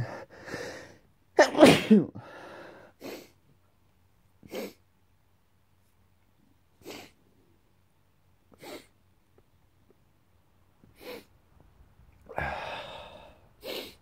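A man sneezing loudly about one and a half seconds in, followed by a series of short, sharp sniffs through the nose. It is an allergy sneezing attack that he puts down to dust and mold in the house.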